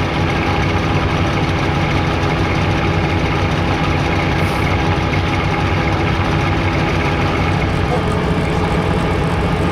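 Fishing boat's engine idling steadily, a constant low rumble.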